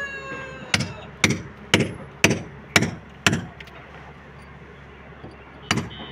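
Hammer blows on a brick wall: six sharp knocks about two a second, a pause, then another knock near the end. A rooster's crow is trailing off at the very start.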